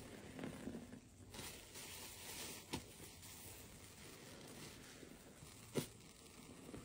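A soapy, saturated sponge squeezed by a gloved hand over a sink of suds: quiet wet squelching and foamy crackle, with liquid running out. Two sharp clicks stand out, the louder one near the end.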